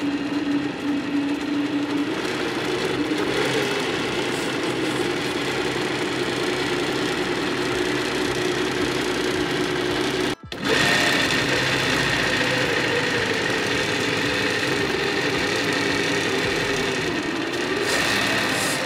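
Electric drivetrain of a 3D-printed 1:10 KamAZ 6350 8x8 RC truck running unloaded with the wheels off the ground: a steady motor and gear whine through the reinforced cardan shafts, rising and falling slightly in pitch, with a short break about ten seconds in.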